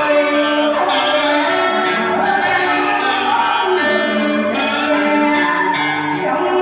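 Music: singing over instrumental accompaniment.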